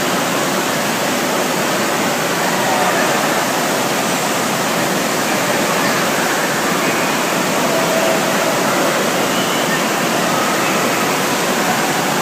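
Steady, loud rush of water, with faint distant voices in it.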